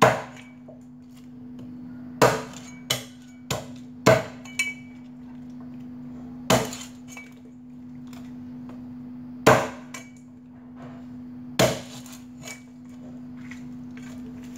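A cleaver chopping the beaks off raw duck heads on a chopping block: about nine sharp, irregular chops, several in quick succession between two and five seconds in. A steady low hum runs underneath.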